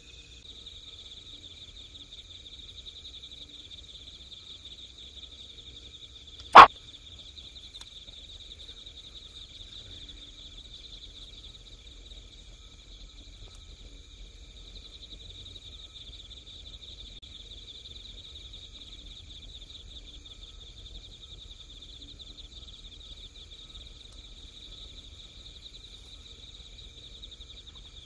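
Steady high chorus of night insects chirping, with one sharp, loud click about six and a half seconds in.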